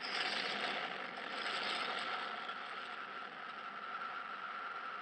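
Sci-fi spacecraft sound effect: a rushing hiss that swells suddenly and eases after a couple of seconds, over a steady high hum.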